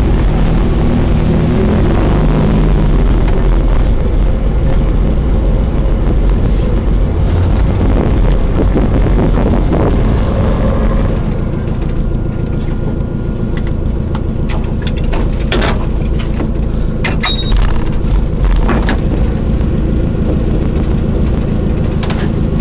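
Car engine running steadily at low revs, heard from inside the cabin, with a few sharp clicks and knocks in the second half.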